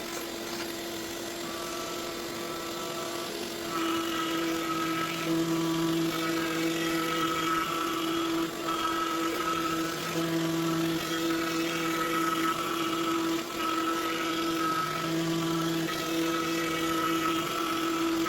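X-Carve CNC router's spindle cutting painted pine with a 1/4-inch upcut bit on a roughing pass: a steady high whine that swells and eases as the bit moves through the cut, with a few short dips.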